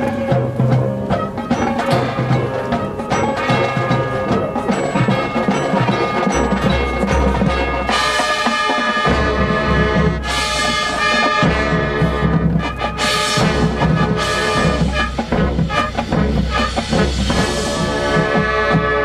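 High school marching band playing its competition show: brass and percussion, with a deep bass part coming in about six seconds in and the brass growing brighter and fuller from about eight seconds.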